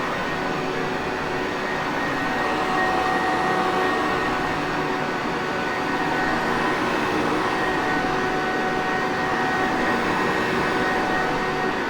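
Sanitaire Perfect commercial upright vacuum cleaner motor running steadily, a constant whooshing rush of air with a steady whine over it.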